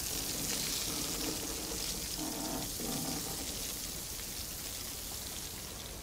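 A steady hiss that slowly fades, with faint brief tones about two to three seconds in.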